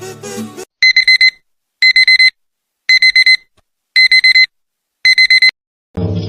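Electronic alarm beeping: five bursts of four quick high-pitched beeps, about a second apart. Music stops just before the beeping and starts again near the end.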